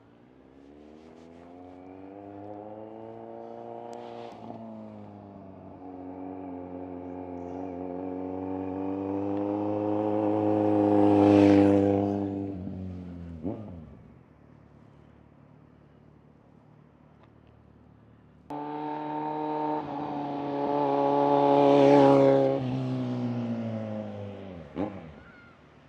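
Kawasaki Z900 motorcycle's inline-four engine going past twice. Each time it grows louder as it approaches, peaks, then drops in pitch and fades as it moves away. The second pass cuts in abruptly, about two-thirds of the way through.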